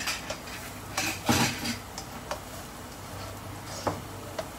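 Spatula scraping and tapping against a wok while stirring garlic frying in oil: scattered scrapes and clicks, the loudest a longer scrape about a second in.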